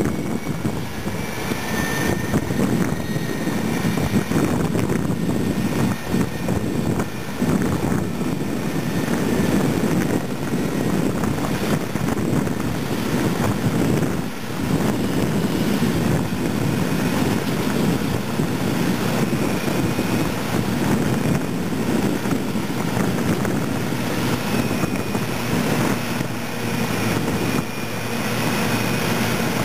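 Caterpillar 637E scraper and D8R bulldozer diesel engines running hard under load while the dozer push-loads the scraper: a loud, steady, heavy engine drone with a faint high whine coming and going.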